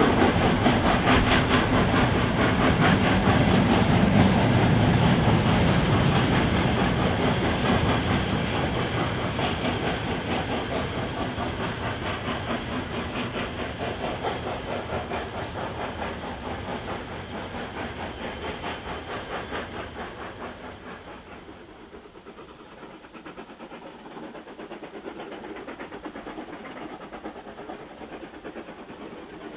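Steam locomotive working a train with rapid, even exhaust beats, loudest at first and then fading steadily into the distance over about twenty seconds.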